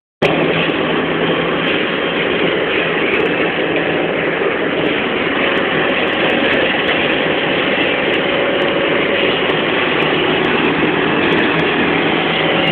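Cabin noise inside a moving BMC 220 SLF low-floor city bus: a steady engine drone mixed with road noise, with small clicks and rattles over a rough road.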